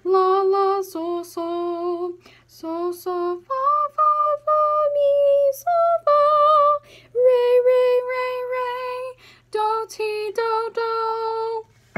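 A woman singing unaccompanied, sight-singing a melody one solfège syllable per note, in short phrases with brief pauses between them.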